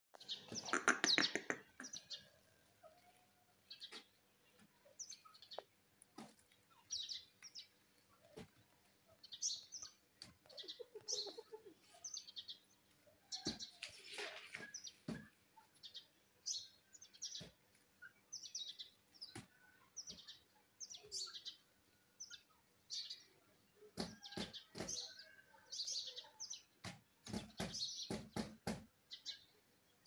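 Indian ringneck parakeet chirping: short high chirps repeated every second or so, with a louder, longer call at the start. A run of sharp clicks comes near the end.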